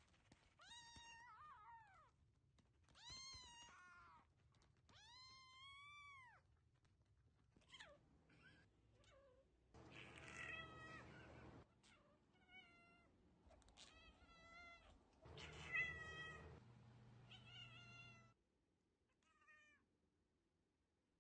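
A series of about ten domestic cat meows: a tabby kitten's high mews first, then grown tabby cats meowing, the loudest call about three quarters of the way through.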